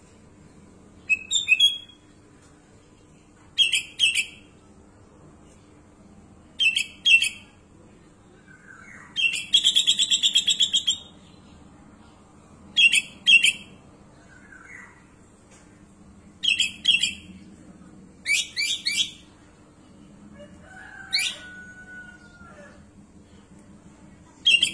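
Sooty-headed bulbul (kutilang) singing: short, bright, loud whistled phrases every two to three seconds, with one longer trilled phrase about ten seconds in. Fainter, lower notes come between the phrases.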